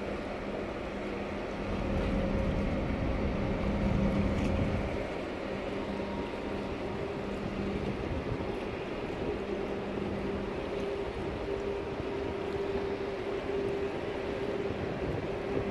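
Steady hum and rumble of a passing Ever Golden-class 20,000-TEU container ship's machinery, with a few held hum tones over the wash of water and wind. The low rumble swells louder for a couple of seconds near the start.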